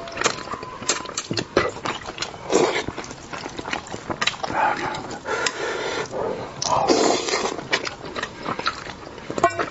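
Close-up eating sounds of a person eating spicy braised fish: many quick wet smacking clicks, with longer noisy sucking sounds about two and a half, five and seven seconds in.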